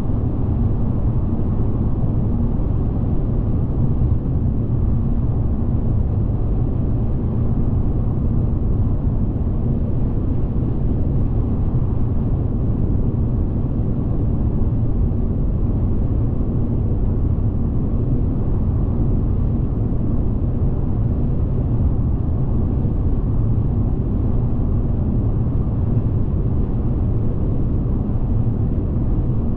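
Steady low rumble of a car driving at motorway speed: road and engine noise, even throughout, with a faint hum in it.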